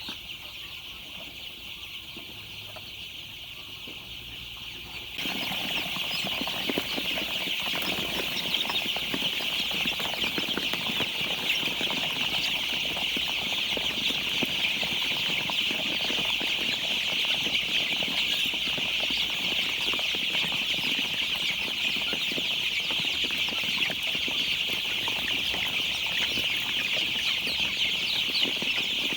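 Many young chicks peeping together in a dense, continuous chorus. About five seconds in it suddenly grows louder and busier, with rustling and wing-flapping among the peeps.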